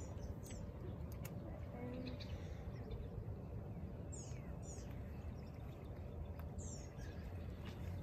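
Birds chirping: a few short, high calls that fall in pitch, in pairs about four seconds in and again near seven seconds, over a steady low outdoor rumble.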